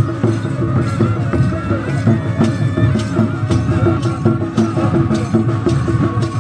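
Traditional tribal festival music: drums beating at a steady pace, with a sustained melody instrument holding long notes over them.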